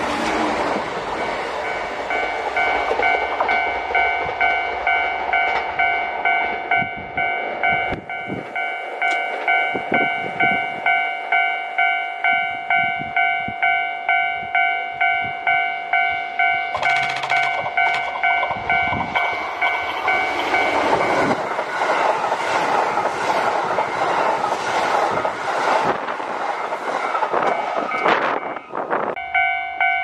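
Japanese level-crossing warning bell ringing in an even electronic ding-ding, about one and a half strokes a second. About two-thirds of the way through, a Kintetsu limited express electric train runs past with a loud rush of wheel and motor noise that drowns the bell for several seconds.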